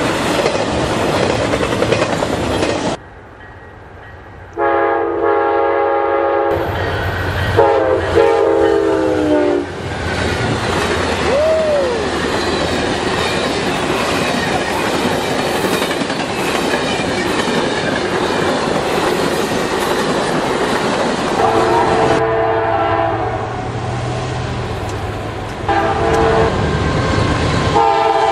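Trains passing at speed, with steel wheels clattering over the rail joints. A locomotive's five-chime air horn blows two long blasts a few seconds in, and sounds again for the last several seconds.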